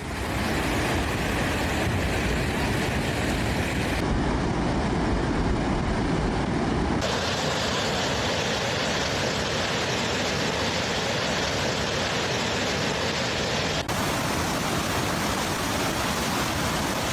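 Steady rushing noise of floodwater and heavy rain in flood footage, in several clips cut together, its character changing abruptly about 4, 7 and 14 seconds in.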